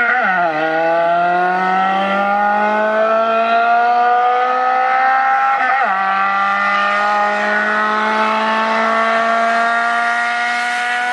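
Car engine pulling through the gears under acceleration: its pitch climbs steadily and drops sharply at gear changes about half a second and six seconds in, then holds nearly level.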